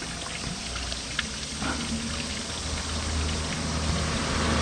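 Steady rush of running water, with a motor vehicle's engine drawing closer and growing louder toward the end.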